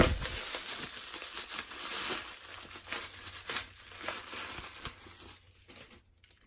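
Packaging crinkling and tearing as it is opened by hand, with scattered small crackles, thinning out near the end. There is a sharp click at the very start.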